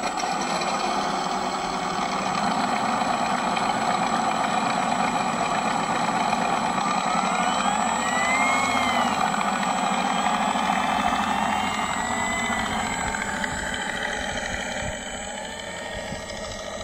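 Electric RC P-47 Thunderbolt model's onboard sound system playing a simulated aircraft engine running steadily. It becomes quieter in the last couple of seconds as the model taxis away.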